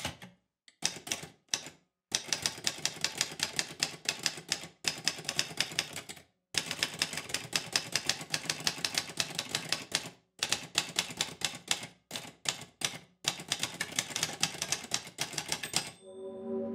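Manual typewriter typing: runs of rapid, clacking keystrokes broken by brief pauses.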